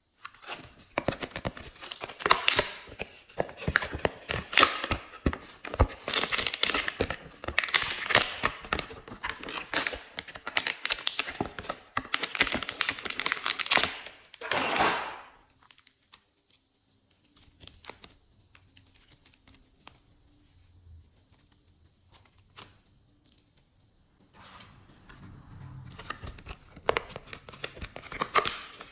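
Hands squishing and stretching glossy slime: dense sticky clicks, pops and crackles, pausing for several seconds in the middle before starting again.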